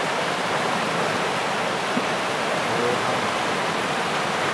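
A fast river rushing over boulders in white-water rapids: a steady, even rush of water with no let-up.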